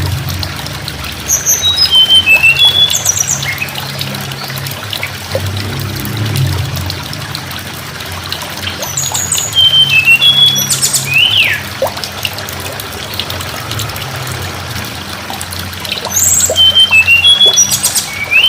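Tledekan gunung songbird singing: a phrase of high, stepped whistled notes ending in a quick falling sweep, repeated three times about eight seconds apart. Steady running or trickling water and a low hum sound underneath.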